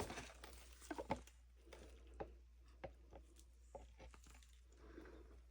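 Near silence with a few faint, scattered clicks and taps from a plastic resin-mixing cup being handled, over a low steady hum.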